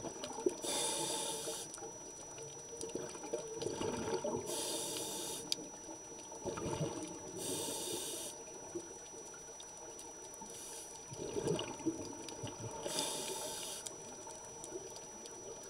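A scuba diver breathing through a regulator, heard underwater: a hiss of breath every few seconds, about four times, with bubbling and gurgling between.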